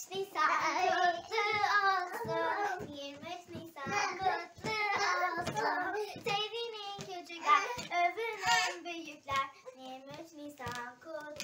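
A young girl singing a song alone, unaccompanied, in a small room.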